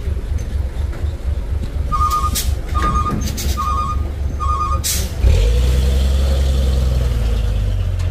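Diesel truck engine running with a low, pulsing chug while a reversing alarm beeps four times, about a second apart. Near the five-second mark a sharp burst of air hiss, like an air brake releasing, is followed by the engine picking up to a louder, steady run under load as the tow begins.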